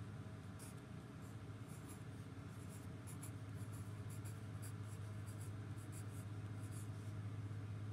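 Graphite pencil scratching on notebook paper in quick short strokes as words are written by hand, over a steady low hum.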